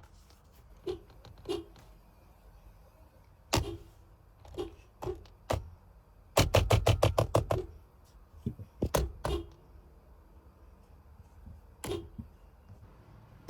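Scattered knocks and taps, with a quick run of about ten in just over a second near the middle, the loudest part.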